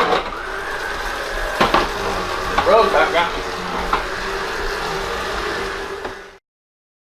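A small electric motor hums steadily, with a few short indistinct voice sounds in the middle. The sound cuts off abruptly near the end.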